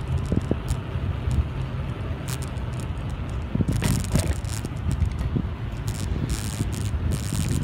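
A mountain bike being ridden over pavement, heard from the bike itself: a steady low rumble of wind on the microphone with the bike rattling and clicking over bumps, and two short stretches of hiss, about halfway through and near the end.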